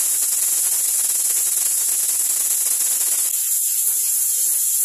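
Aluminium pressure cooker on a gas burner venting steam through its weighted valve: a loud, steady high-pitched hiss, showing the cooker is up to pressure. A rougher layer under the hiss thins out about three seconds in.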